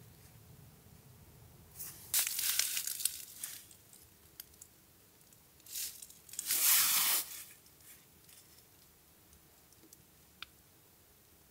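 Rustling and crinkling of handled material in two main bursts, the second the loudest, with a few light clicks.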